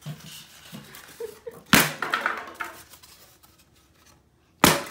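Two sharp cracks about three seconds apart: pieces of styrofoam being broken with karate chops.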